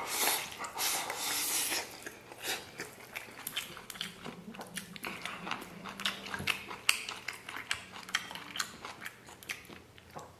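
Close-up eating sounds of a man with a mouthful of fried pork liver. About two seconds of loud noisy slurping as he pulls food from the bowl's rim into his mouth, then steady wet chewing with many small smacks and clicks.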